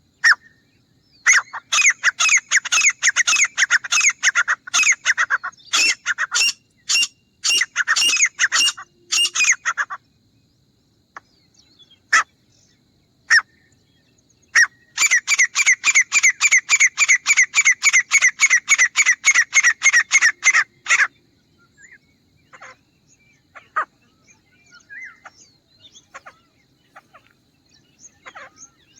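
Grey francolin calling: two long bouts of rapid, repeated loud notes, about five a second, each bout running several seconds. Fainter, scattered calls come between and after the bouts.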